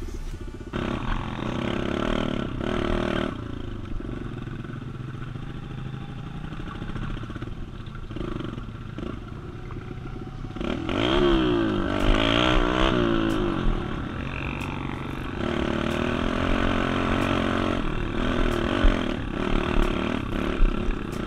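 An engine running steadily, growing louder with its pitch rising and falling about halfway through.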